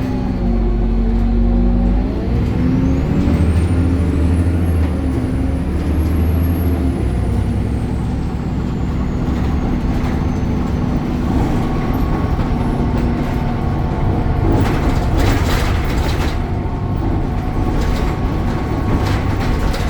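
BredaMenarini Avancity Plus city bus's Deutz Euro 5 diesel engine running as the bus drives. A thin high whine rises and then falls during the first half, and several short bursts of hiss come about three quarters of the way through.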